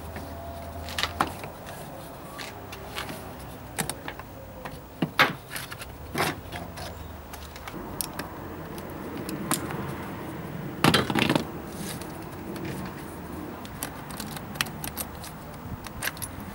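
Irregular clicks, knocks and metallic rattles of tools and parts being handled, with a longer rattle about eleven seconds in, over a low steady hum.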